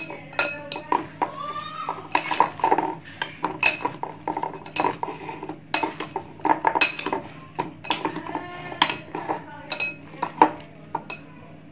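A metal spoon and chopsticks clinking against a glass bowl while sauce-coated fried chicken wings are tossed in it: irregular ringing clinks, one or two a second.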